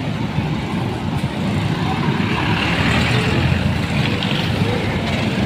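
A large coach bus passing close by in street traffic, its engine rumbling steadily with a motorcycle going past; the noise swells to its loudest in the middle.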